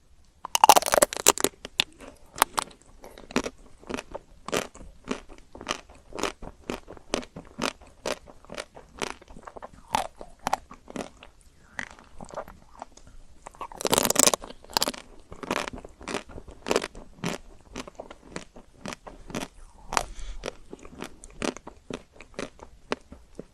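Close-up crunching and chewing of chocolate-coated ice cream, the hard chocolate shell cracking between the teeth. There are loud bites about half a second in and again about 14 seconds in, with steady crunchy chewing of about two to three crunches a second between them.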